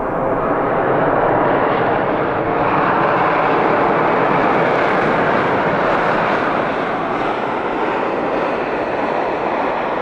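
Embraer regional jet's twin turbofan engines at takeoff power: a steady, loud jet roar as the airliner climbs out. The roar peaks a few seconds in, then the high end slowly dulls as the jet draws away.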